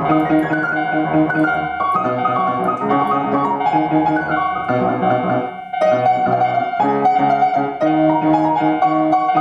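Piano music: a fast, busy piano arrangement with many quick notes and chords sounding together, over a steady held tone.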